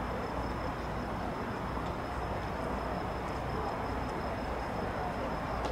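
Steady outdoor background noise, an even rush with a faint high whine running through it.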